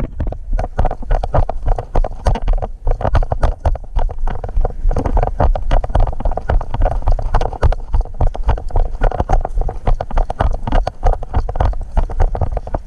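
Footsteps of a person running, a fast, steady series of thuds on the ground.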